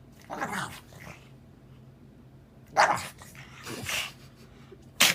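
Pug making a string of short, goofy vocal noises: four separate bursts, the loudest about three seconds in and a brief sharp one at the very end.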